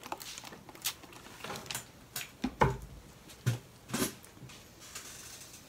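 A few scattered light knocks and taps from objects handled on a work table, the loudest a dull thump about two and a half seconds in.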